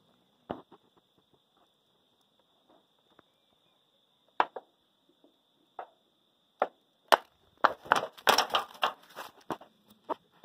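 Dry leaf litter and twigs being stirred and poked: scattered sharp clicks and snaps, then a dense burst of crackling and rustling around eight seconds in, over a faint steady high tone.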